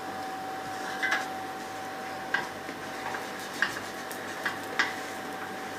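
Light clicks and taps of kitchen utensils being handled, about five spaced a second or so apart, over a steady hum with a faint steady whine.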